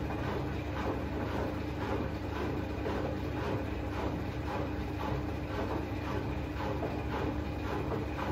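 Front-loading washing machine running near the end of its quick wash cycle: a steady hum with a regular clicking rhythm.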